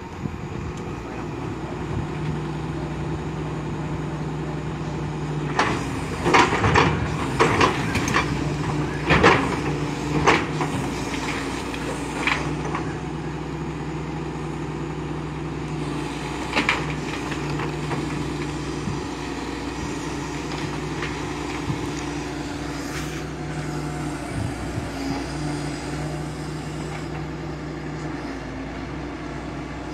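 Hitachi EX200 excavator's diesel engine running steadily while the machine works. A run of sharp clanks and knocks comes about six to twelve seconds in, with one more a few seconds later.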